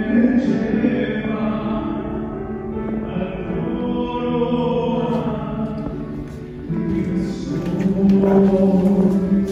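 Choir singing with long held notes, swelling louder about two thirds of the way through.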